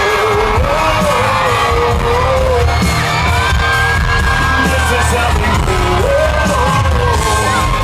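Live country-rock band playing loud through a concert sound system, a heavy bass and drum beat under long, sliding melody notes.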